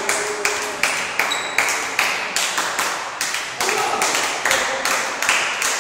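Spectators clapping in unison, an even beat of about three claps a second echoing around a sports hall.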